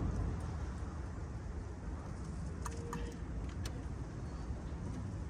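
A few light clicks of metal parts being handled, three of them close together a little under halfway through, over a steady low background rumble.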